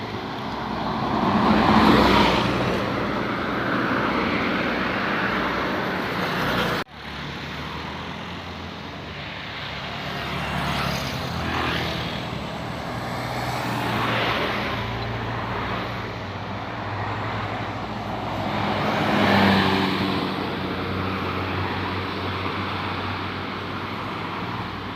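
Buses and other traffic passing on a road, diesel engines running under a steady low hum, swelling and fading as each vehicle goes by. The sound cuts off abruptly about seven seconds in and picks up again.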